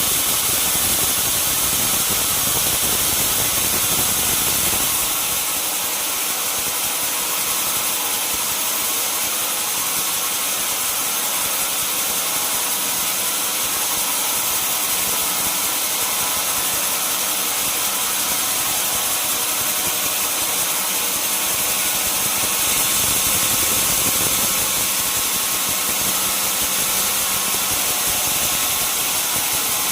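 Sawmill wheel saw (band saw) machinery running steadily with a strong high hiss. A heavier low rumble drops away about five seconds in and returns about two thirds of the way through.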